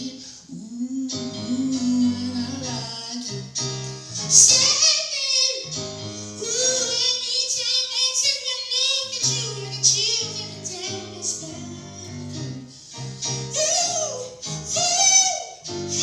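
A high, soulful singing voice runs through melismatic lines with vibrato over sustained keyboard and bass chords.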